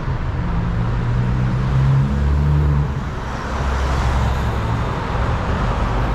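Town street traffic: a motor vehicle's engine running close by, with road noise swelling about three to five seconds in as a vehicle passes.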